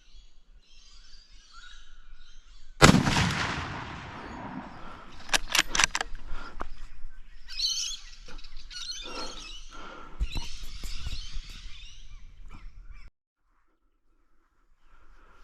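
A single loud rifle shot about three seconds in, rolling away in a long echo. A few sharp clicks follow a couple of seconds later, then birds calling.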